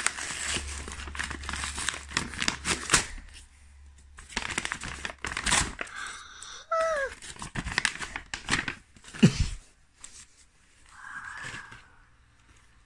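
Plastic blind-bag packaging being crinkled and torn open by hand, a dense crackling rustle that thins out after the first half. A short falling vocal 'oh' cuts in about halfway through.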